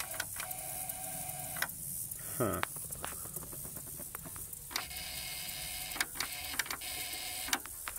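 Electrical whirring from a John Deere GT245 lawn tractor, coming in a few stretches of a second or two each, broken by clicks. It is an abnormal noise from a fault in the tractor's starter or ignition circuit, after a capacitor on its ignition module burned out and smoked.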